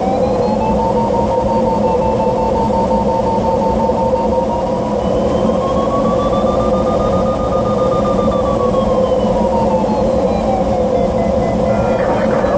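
Steady rush of airflow in a DG1000 glider's cockpit, with an electronic variometer tone gliding up in pitch and falling back again over several seconds; the rising pitch signals stronger lift, the falling pitch weaker lift.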